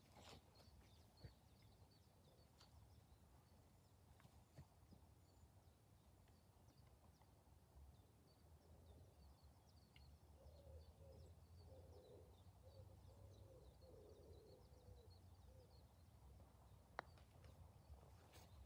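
Near silence outdoors with faint birdsong, broken near the end by a single sharp click of a putter striking a golf ball.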